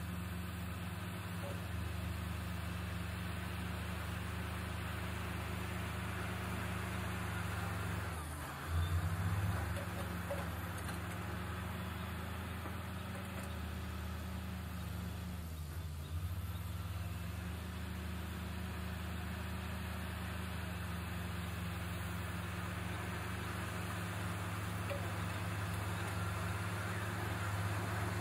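Diesel engines of a hydraulic excavator and a crawler bulldozer working earth, a steady low drone. Twice, about eight and sixteen seconds in, the engine note sags and comes back up as the engine takes a load, the first time with a short rise in loudness.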